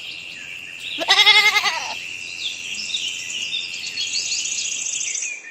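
A single wavering bleat from a goat or sheep about a second in, lasting under a second, over steady bird chirping and a high continuous drone.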